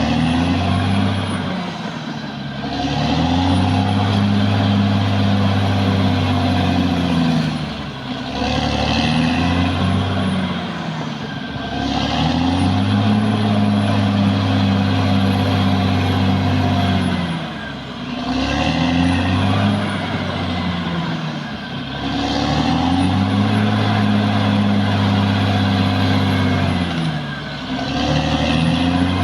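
Caterpillar D6R XL bulldozer's diesel engine revving up, holding high revs for several seconds, then dropping back, over and over, with a faint high whine rising and falling along with it. Long held runs alternate with shorter ones as the machine works.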